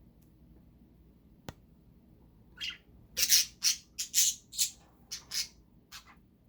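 Pet parrot giving a run of about nine short, harsh squawks over three to four seconds, after a single sharp click.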